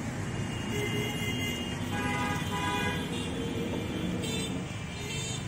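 Street traffic noise with a vehicle horn sounding for about a second, roughly two seconds in.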